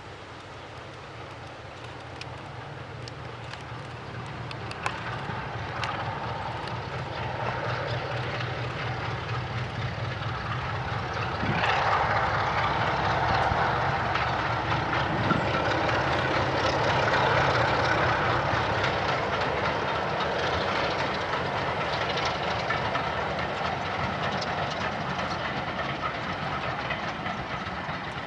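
British Rail Class 33 diesel-electric locomotive passing with its train, its Sulzer eight-cylinder engine running with a steady hum. The sound grows louder to a peak around the middle, then eases off as the coaches follow, with some wheel clatter on the rails.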